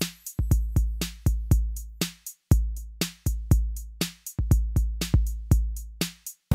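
Electronic background music: a drum-machine beat of sharp hits over a deep bass line.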